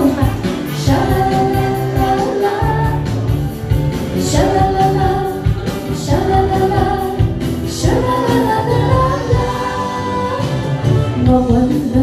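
Woman singing a pop song into a handheld microphone over a karaoke backing track, holding long notes with a waver.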